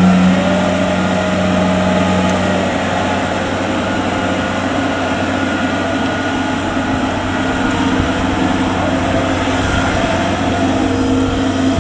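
Diesel engine of a rice combine harvester running steadily in a muddy paddy, with a constant low hum and a slight shift in its tone partway through.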